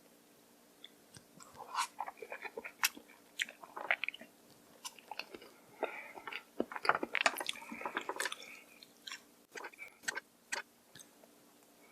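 Close-miked mouth sounds of a person eating noodles: wet chewing and smacking, with many sharp clicks, busiest from about two to eight seconds in.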